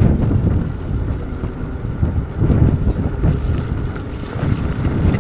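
Wind buffeting the microphone while riding along: a loud, gusting low rumble that swells and eases.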